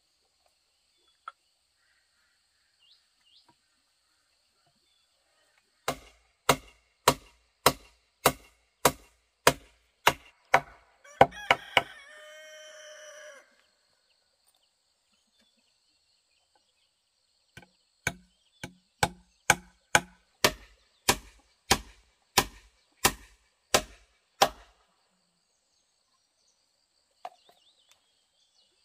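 Two runs of steady chopping blows, a little under two strokes a second and about a dozen strokes each, with a quiet pause between them. A rooster crows once near the end of the first run.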